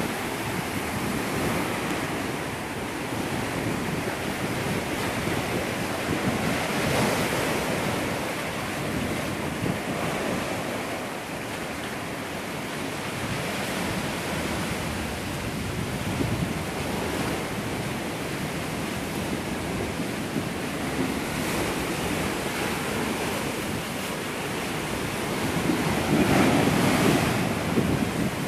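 Sea surf churning and surging through a narrow rocky gully into a sea cave, rising and falling in slow swells with a louder surge near the end. Wind buffets the microphone.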